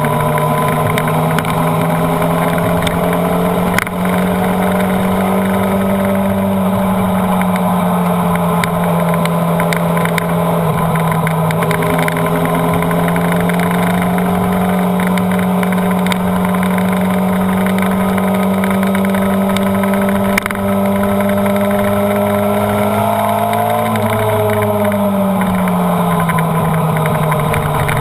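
Honda CBR929RR's inline-four engine pulling at high revs, its pitch climbing slowly, then falling away about 24 seconds in as the revs drop. Wind rush over the microphone runs underneath.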